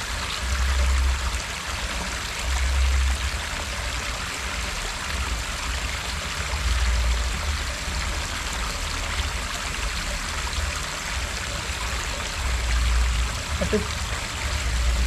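Steady rushing of water spilling over a small irrigation weir into a shallow stream, with a low rumble that comes and goes.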